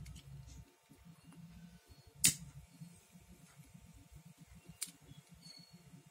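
Disposable lighter struck with one sharp click about two seconds in, then a fainter click near five seconds, as it is used on the ends of macrame cord.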